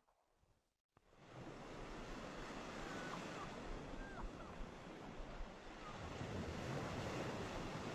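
Ocean surf breaking and rushing on a beach, a steady roar of water that comes in suddenly about a second in and swells toward the end.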